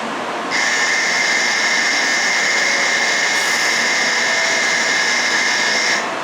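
Electronic departure bell on a Shinkansen platform ringing steadily for about five and a half seconds, signalling the train's departure, then cutting off abruptly.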